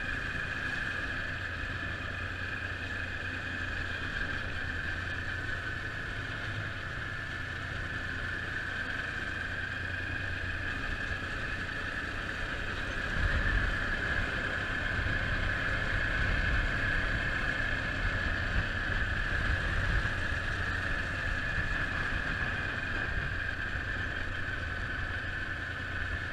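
Motorcycle engine running steadily while riding, with a constant drone and low rumble of road and wind noise, getting louder about halfway through.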